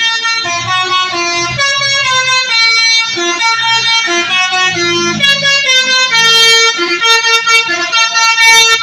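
Bus multi-tone musical horn ("telolet" horn) playing a tune in short stepped notes over a held tone.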